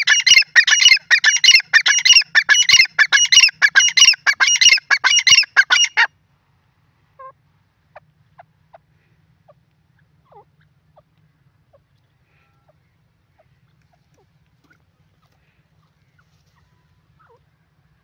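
Grey francolin (teetar) calling: a loud, rapid series of shrill repeated notes, about three a second, that stops abruptly about six seconds in. After that only a few faint scattered clicks and chirps.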